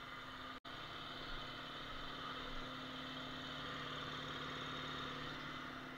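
Shop air compressor motor running steadily, a low hum with hiss. The sound cuts out for an instant about half a second in.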